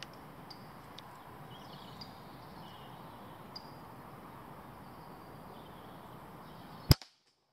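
A single sharp shot from a Weihrauch HW100 PCP air rifle near the end, the loudest thing by far, fired at a wood pigeon and striking it. Before it there is a faint outdoor background with high chirps, and the sound cuts off suddenly just after the shot.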